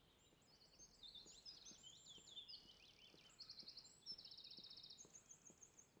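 Faint woodland birdsong, several birds overlapping in chirps and short whistled phrases, with a fast trill a little after four seconds in.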